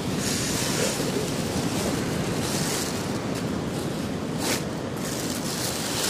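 Sea surf washing onto a beach in a steady hiss that swells now and then, with wind blowing on the microphone.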